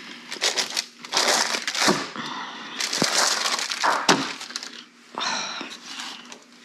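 Baking parchment crinkling and rustling as a roasted pumpkin half is turned over on a metal sheet pan, with a few sharp knocks against the tray.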